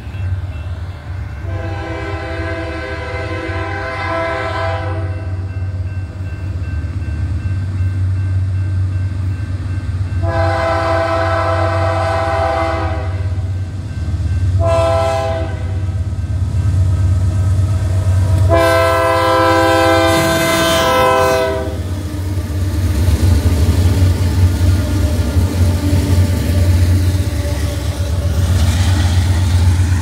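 Locomotive air horn on a Union Pacific C44ACM sounding the grade-crossing signal as the train approaches: two long blasts, a short one, then a long one. A steady low rumble runs underneath and grows louder as the train reaches the crossing.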